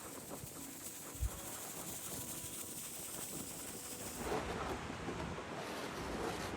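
Wind buffeting the microphone over outdoor ambience in a snowstorm, with a brief low thump about a second in and the sound growing busier about two-thirds of the way through.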